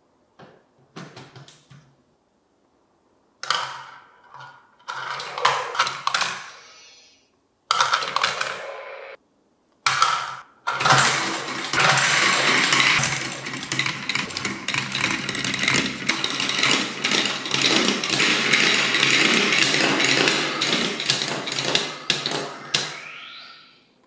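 Marbles rolling and clattering through a plastic VTech Marble Rush marble-run track, in short separate bursts at first, then a long continuous rattle from about 11 seconds that fades out just before the end.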